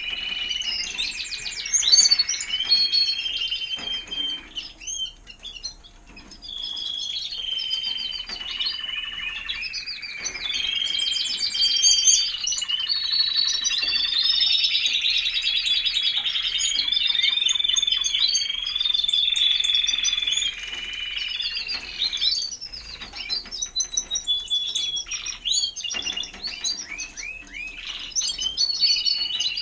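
Timbrado español canary singing a long song of rapid rolling trills and held notes, pausing briefly about five seconds in and again around twenty-two seconds.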